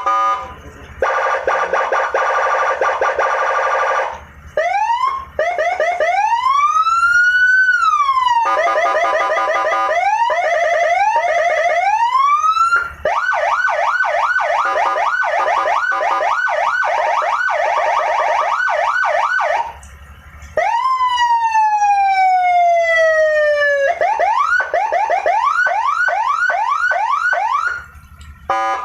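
Custom Senken police-escort siren run through its tones one after another: a steady horn-like tone, slow rising-and-falling wails, fast repeated short yelps, and a long falling sweep near the middle, then yelps again.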